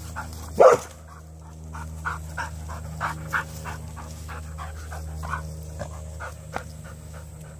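A dog panting rapidly and evenly, about three breaths a second, with one loud short sound less than a second in, over a steady low hum.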